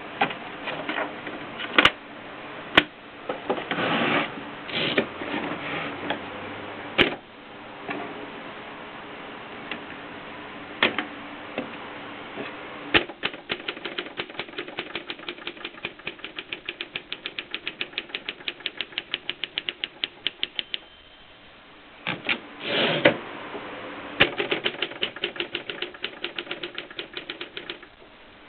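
Mercedes Superba typewriter being typed on: keys clacking, with a fast even run of keystrokes at about five a second in the middle. A brief ring and a longer sliding sound follow, then more typing.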